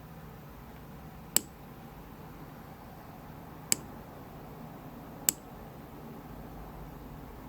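Three sharp, light metallic clicks, a second or two apart, from a lock pick and tension wrench working the pins of a Winkhaus Titan euro cylinder during lock picking.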